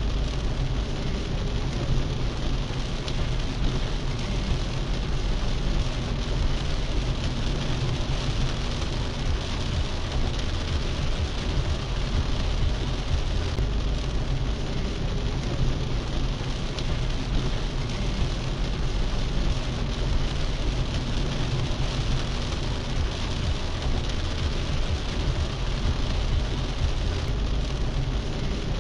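Heavy rain on a car's windscreen and roof, heard from inside a car driving on a flooded road, over a steady low rumble of the car and its tyres on wet tarmac.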